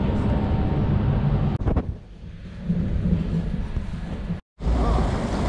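Low rumbling noise on a GoPro's microphone across several quickly cut clips, with abrupt cuts about a second and a half in and again near the end. The later part holds a train's running noise heard from inside the carriage.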